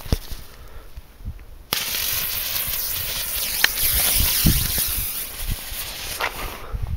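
A single sharp pop, then a steady firework hiss that starts suddenly about two seconds in and cuts off near the end, with a few low thumps under it.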